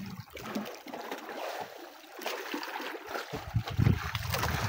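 Water sloshing, trickling and splashing against the side of a small outrigger fishing boat as a landed tuna is held alongside. A low rumble of wind on the microphone comes back about three seconds in.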